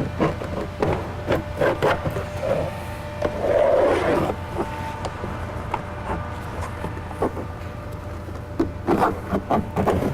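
Plastic trim tool scraping and knocking against the plastic door panel and door metal as it is worked into the gap at the panel's bottom edge. There are irregular taps throughout, a longer scrape a little before 4 seconds and a quick run of knocks near the end.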